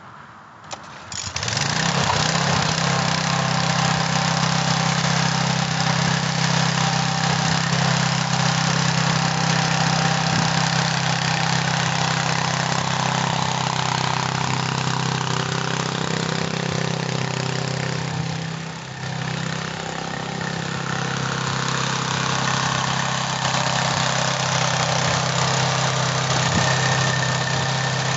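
Small single-cylinder lawn mower-type engine being pull-started, catching about a second in and then running steadily as it drives a homemade trike. The engine note drops briefly about two-thirds of the way through, then picks back up.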